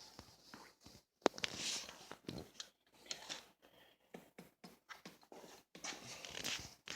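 Scattered light clicks and knocks of hand work on a motorcycle front brake lever and its pivot bolt during fitting.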